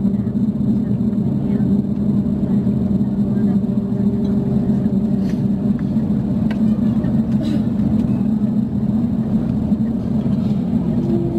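Cabin noise inside an Airbus A350-900 on the ground before takeoff: a steady drone from the Rolls-Royce Trent XWB engines at idle and the air-conditioning, with a low hum and a few faint clicks.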